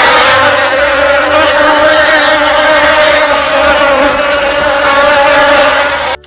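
Steady, loud buzzing of a flying insect's wings, holding one pitch. It stops abruptly near the end.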